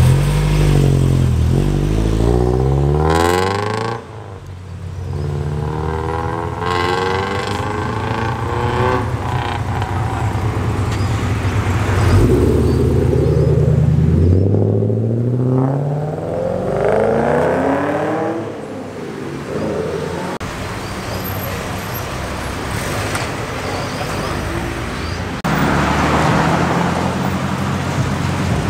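Cars pulling away one after another, starting with a Nissan S13 Silvia. Their engines rev and rise in pitch through the gears, with a sudden change in level about four seconds in.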